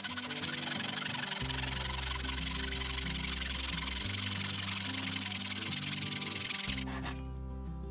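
Thin-bladed hand saw cutting across a wooden dowel with quick back-and-forth rasping strokes, stopping about seven seconds in. Background music with low held notes plays underneath.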